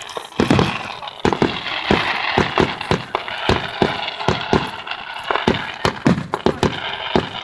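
Fireworks display exploding in quick succession: a dense, irregular run of bangs and crackles, several a second.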